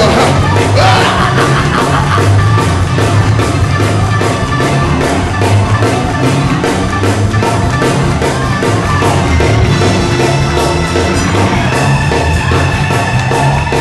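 Church band playing loud, upbeat music with a steady, driving drum beat and a pulsing bass line.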